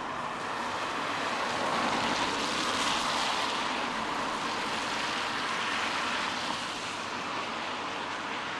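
A vehicle passing on a wet road, its tyres hissing louder to a peak about two to three seconds in and then slowly fading, over the steady noise of rain.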